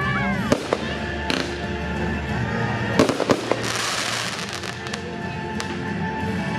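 Fireworks display: sharp bangs of bursting shells, a cluster about three seconds in followed by a second of crackling hiss, over music played with the show.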